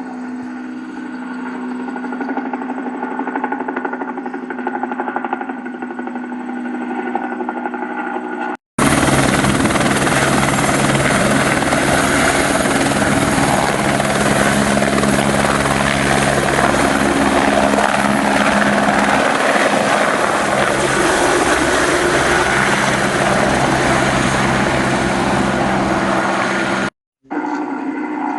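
Helicopters running in three spliced recordings: a steady engine-and-rotor sound, a brief silent cut, then a louder, fuller helicopter sound with a fast pulsing texture, and another short cut near the end before a quieter helicopter recording.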